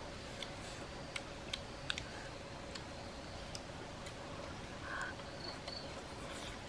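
Sparse small clicks and smacks, about one or two a second, from people eating cooked fish with their fingers, over a faint steady hum.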